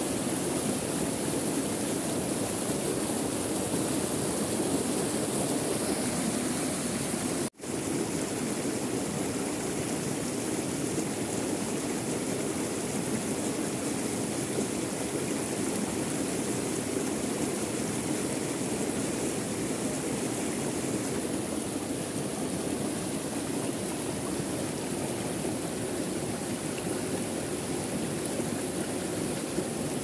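Small forest waterfall pouring over rocks and a fallen log into a pool: a steady rush of water, which cuts out for an instant about seven seconds in.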